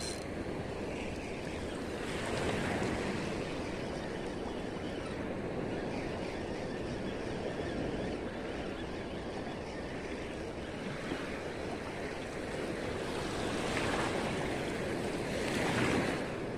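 Small waves washing on a shallow shore, with wind, as a steady wash that swells a few times.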